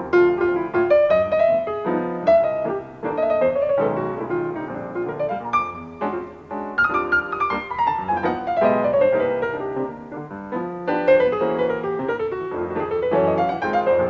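Two acoustic pianos playing jazz as a live duet, dense chords and quick runs, with a long descending run about seven seconds in. Heard off a cassette tape of an FM radio broadcast.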